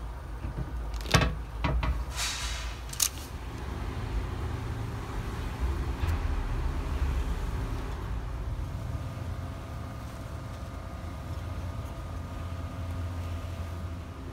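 Steady low hum with a few sharp knocks and clicks in the first three seconds; a faint steady tone joins about nine seconds in.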